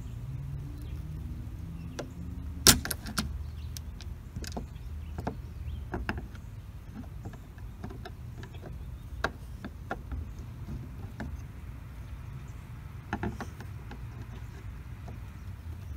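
Scattered metal clicks and taps of a screwdriver and then pliers working at a shed door's knob as it is being unscrewed, with one sharp loud clack about three seconds in. A steady low rumble sits underneath.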